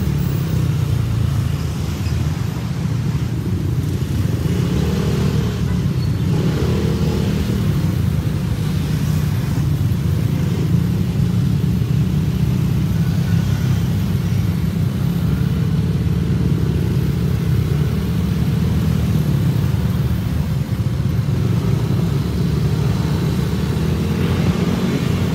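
Motorcycle and scooter engines running in a moving column, heard as a steady low engine and road rumble.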